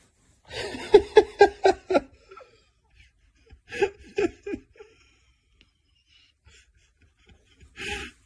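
A person laughing: a run of about six quick ha-ha pulses starting about half a second in, a shorter burst of laughter around four seconds in, and a brief breathy laugh near the end.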